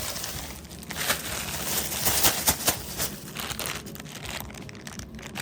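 Plastic candy packaging crinkling and rustling as it is handled, with a run of sharp crackles between one and three seconds in.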